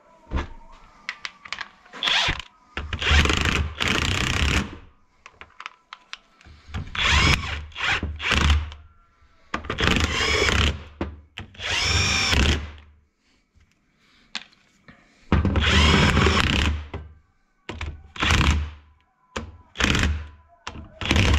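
Power drill running in about seven short bursts of one to two seconds each, with brief clicks and knocks between them, as a bearing is being fitted into a gearbox.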